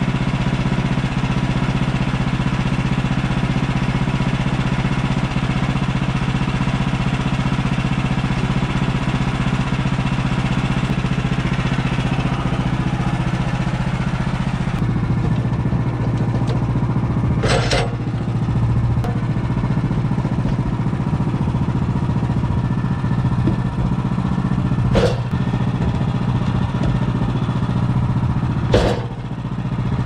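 Woodland Mills HM130MAX band sawmill's engine running steadily. About halfway through the sound drops to a smoother, lower running note. Three sharp knocks of wood being handled come in the second half.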